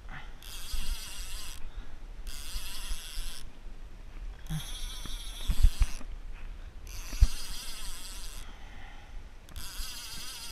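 A spinning fishing reel cranked hard in repeated bursts while speed jigging, its gears and line giving a rattling whir about every two and a half seconds. Two sharp knocks come a little past the middle.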